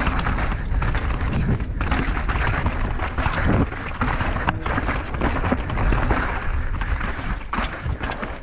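Mountain bike riding fast down a rocky dirt singletrack: tyres crunching over dirt and loose stones and the bike rattling over bumps, with a steady rush of wind noise on the helmet microphone.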